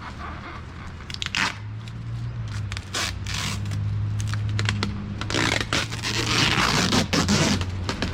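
Cardboard shipping box being torn open: packing tape ripping and cardboard scraping and crunching in a run of quick, irregular rasps, with a low steady hum underneath from about a second and a half in.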